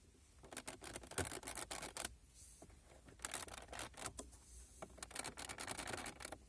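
Plastic car interior parts creaking and clicking in several bursts as they are worked and flexed: the squeak of dry plastic surfaces rubbing together.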